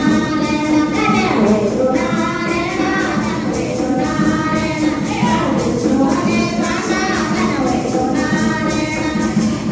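A group of women singing a Hindu devotional song (bhajan) together, one voice led into a microphone, in steady repeated phrases.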